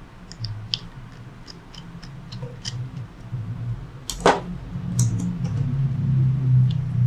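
Small clicks and taps of a screwdriver and laptop parts as the hard-drive bay of an opened laptop is worked on, with one sharp, louder click about four seconds in. A steady low hum runs underneath.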